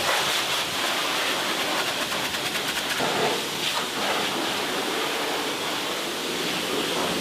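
Steady rushing hiss with no pitch or rhythm to it.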